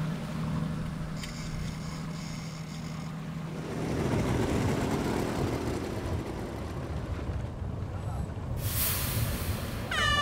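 A boat's engine humming steadily for the first few seconds, then rushing wind and water noise on open water, with a brief sharper hiss near the end.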